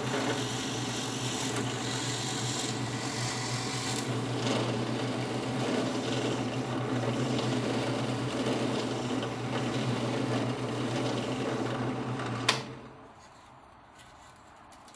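Benchtop drill press running, its bit drilling through a stack of wood pieces: a steady motor hum with cutting noise over it. It cuts off suddenly with a click near the end.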